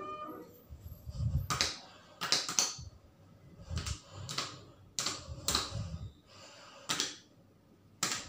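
Schindler elevator car buttons being pressed one after another, each press a sharp click, about nine in irregular succession.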